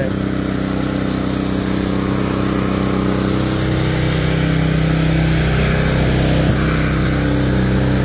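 Small gasoline engine of an early-entry concrete saw running steadily at an even speed.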